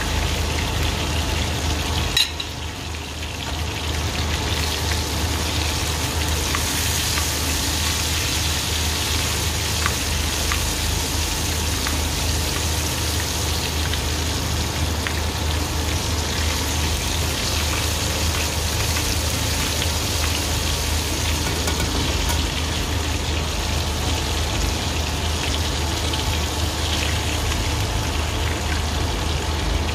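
Food frying in a hot pan: a steady sizzle, with a sharp click about two seconds in and a brief drop in the sizzle before it returns. A steady low hum runs underneath.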